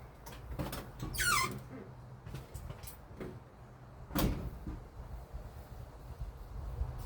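Small handling noises: a short squeak that falls steeply in pitch about a second in, and a single sharp knock about four seconds in, with a few light clicks between.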